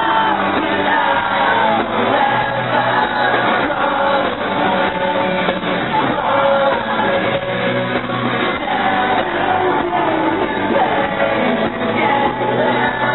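Live rock band in an arena, a singer over guitar and band, recorded from within the crowd, with fans shouting.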